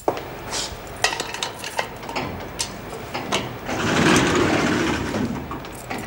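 Footsteps and light knocks in a prison cell-block corridor, with a louder scraping, rattling noise lasting about a second and a half from about four seconds in.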